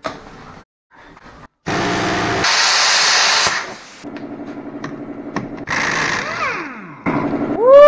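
Pneumatic impact wrench running on a car's front wheel hub, breaking loose seized bolts: loud spells of spinning with hissing exhaust air, between them a quieter stretch of even, fast hammering. Near the end a loud swooping tone rises and falls.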